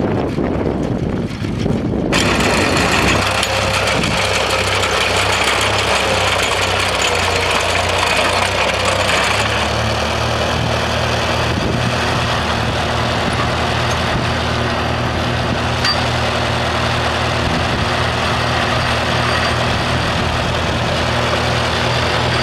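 Farmall tractor engine running steadily.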